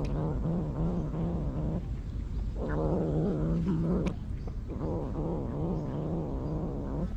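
Street cat grumbling while it eats, a low wavering drone that guards its food from other cats. It comes in three long stretches with short breaks between.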